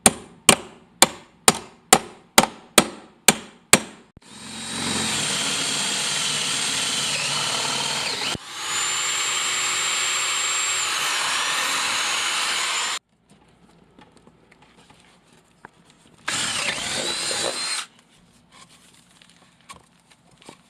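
About eight sharp knocks, roughly two a second, then a power drill runs in two long stretches of about four seconds each, its whine dipping partway through the second, and once more briefly near the end.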